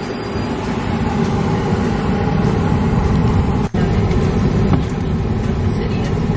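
Steady car engine and road rumble heard from inside the vehicle, cut off for an instant about three and a half seconds in.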